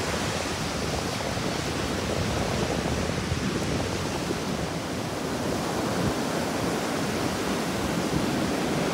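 Ocean surf breaking on a sandy beach: a steady, even rush of waves with no single breaker standing out.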